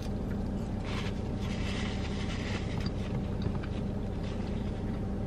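Steady low hum of an idling car, heard inside its cabin, with faint paper rustling about one to two seconds in.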